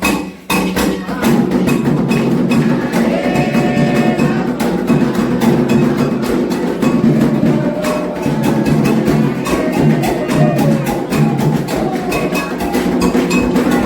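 Candomblé ritual percussion: atabaque hand drums and an agogô bell playing a fast, steady rhythm of rapid strikes, with voices singing over it.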